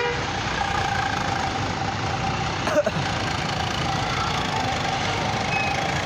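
Tour bus pulling away, its engine running under steady street noise, with a thin high tone held throughout and a single sharp knock about three seconds in.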